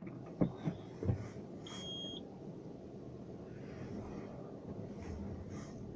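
Steady road and engine hum inside the cabin of a moving JAC S5, with a few soft knocks in the first second and a single short high beep about two seconds in.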